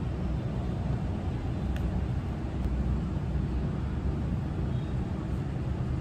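Steady low background rumble of room noise, with a couple of faint clicks about two seconds in.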